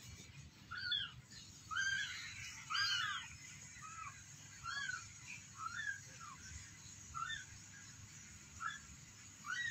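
A very young kitten mewing over and over: about a dozen short, high, rise-and-fall peeps, roughly one a second.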